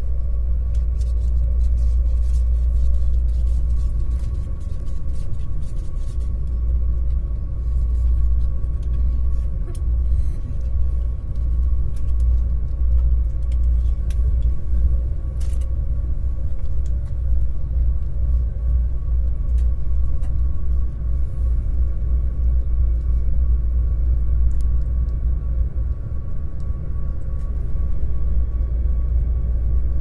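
Passenger train car running along the rails at speed, heard from inside: a steady low rumble with a faint steady high hum and scattered light clicks.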